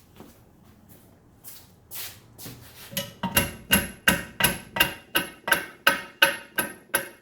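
Rubber mallet striking a stuck part of a 1950s Craftsman 150 drill press to drive it loose: a few light taps, then from about three seconds in a steady run of blows, about three a second, each with a short metallic ring.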